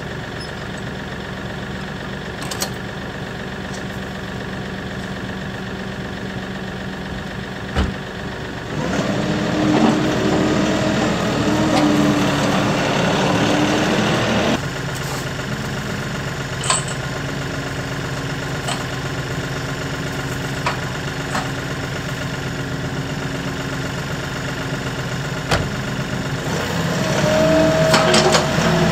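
Kioti tractor's diesel engine idling steadily, with a few sharp metal clanks as the box blade is hitched on. For about five seconds a third of the way in, the engine note rises with a whine, then drops back suddenly; near the end it rises again with a higher whine.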